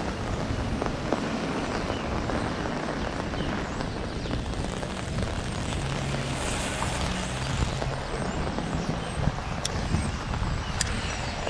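Heavy nor'easter rain and strong wind, with wind buffeting the microphone as a steady rushing noise. A vehicle engine hums faintly around the middle, and there are two sharp ticks near the end.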